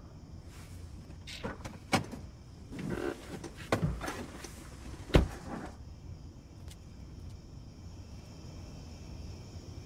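A run of clicks and knocks with some rustling, like a door or a car's door and fittings being handled, the loudest knock about five seconds in; after that only faint background.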